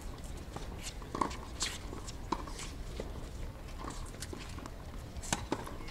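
Tennis balls being struck by rackets and bouncing on a hard court during a practice rally: a series of sharp pops at irregular intervals.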